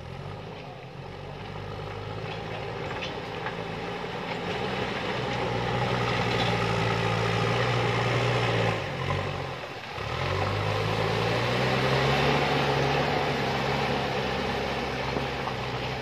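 JCB backhoe loader's diesel engine working hard as the machine climbs the dirt mound with its front bucket, growing steadily louder as it comes closer. About nine seconds in, the engine note dips and falls in pitch for a moment, then rises again and fades near the end.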